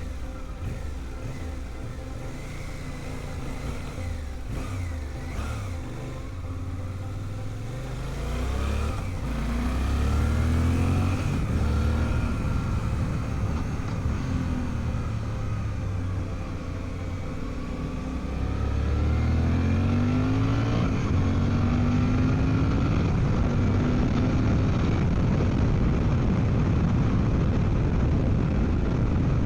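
Suzuki V-Strom 800DE's parallel-twin engine accelerating through the gears, its pitch rising and dropping back at each shift, then a steady rush of wind noise as road speed builds.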